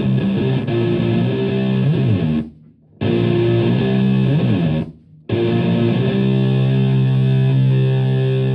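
Electric guitar played through a germanium three-transistor Tone Bender MKII-style fuzz pedal into a Marshall Plexi amp, giving a thick fuzzy tone. The chords include string bends. The playing stops briefly twice, about two and a half seconds in and again about five seconds in, and ends on a long held chord that rings out.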